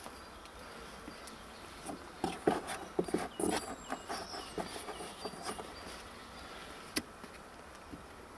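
Faint, scattered taps, clicks and wet handling noises as raw chicken slices are dredged in flour and dipped in beaten egg, with one sharper click about seven seconds in.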